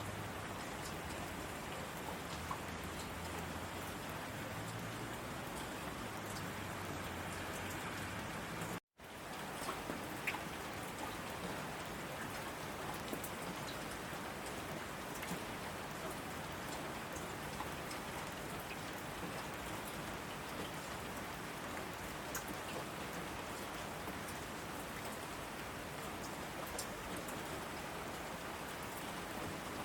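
Heavy rain falling on asphalt: a steady hiss with scattered ticks of individual drops. The sound cuts out for a moment about nine seconds in, then fades back up.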